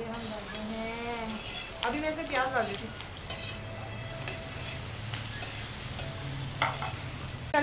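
Chopped okra dropped into hot oil with cumin seeds and garlic in a frying pan, sizzling as it fries and is stirred, with light scrapes and clicks from the stirring.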